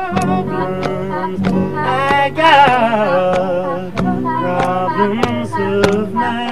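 Two women and a man singing together in harmony to a strummed acoustic guitar.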